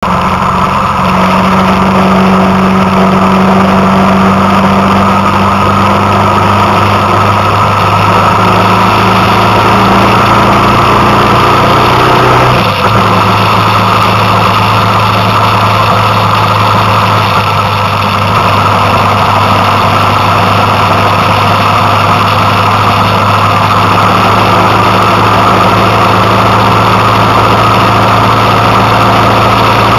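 Vehicle engine running steadily while under way, over a continuous rush of wind and road noise; the engine note shifts briefly about twelve seconds in.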